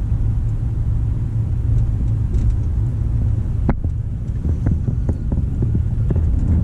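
Road and engine noise inside a vehicle's cab while driving on a freeway: a steady low rumble, with a single sharp click about three and a half seconds in.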